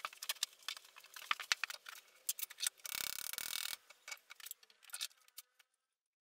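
Clicks and clinks of metal parts being handled on a milling machine's spindle housing as a round steel fitting is set down over a tapered roller bearing, with a short scraping rustle about three seconds in.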